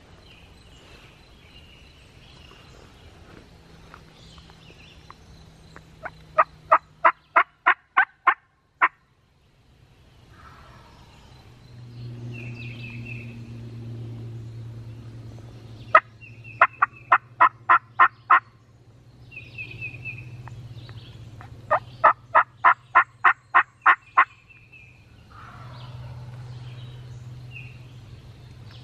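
Turkey yelping: three loud runs of evenly spaced notes, about eight in each run and roughly three a second. Songbirds chirp faintly between the runs.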